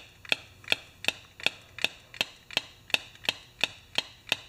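Steady mechanical ticking: sharp, evenly spaced clicks with a short metallic ring, a little under three a second.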